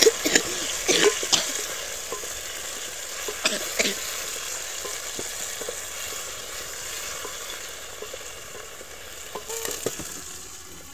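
Chopped tomatoes and onions sizzling in hot oil in a steel pot over a wood fire, with a wooden spoon scraping and knocking against the pot as they are stirred. A few metal knocks near the end as another pot is set on top as a lid.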